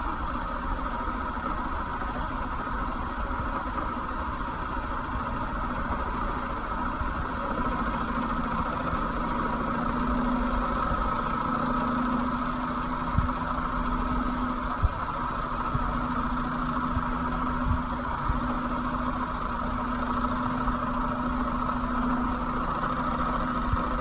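Hodaka Ace 100 single-cylinder two-stroke engine of a Bonanza mini bike, idling steadily, with a few brief clicks.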